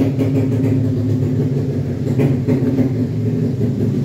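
An engine running steadily at idle, an even low hum with no revving.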